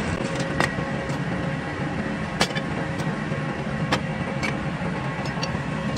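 A workshop machine running steadily with a low hum and a faint whine, with sharp clicks and knocks at irregular moments, about eight of them.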